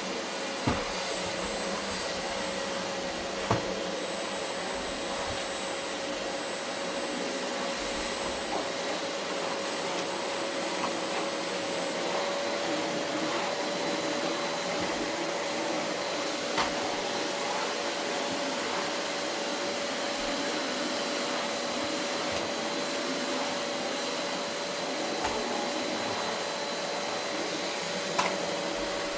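Vacuum cleaner running steadily over carpet, its motor holding a steady whine, with a few short sharp clicks along the way.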